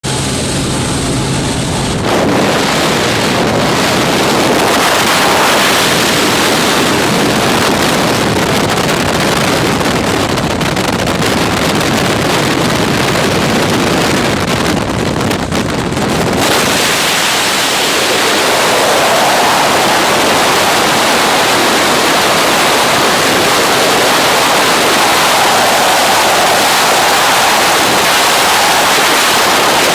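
Loud rushing wind of freefall buffeting a skydiver's camera microphone, after a steady hum with a few steady tones in the first two seconds from the jump aircraft. The rush changes tone about halfway through, losing some of its low rumble.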